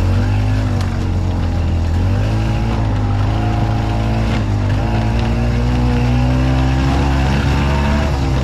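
Harley-Davidson golf car's engine running under way, its pitch rising and falling slightly with speed over a bumpy ride, with a few light knocks.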